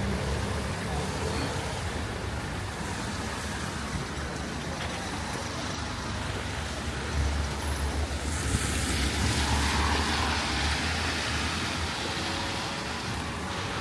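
Traffic on a rain-wet street over a steady hiss of rain; a vehicle goes by with a swelling rumble, loudest about eight to eleven seconds in. A single sharp knock sounds just before six seconds in.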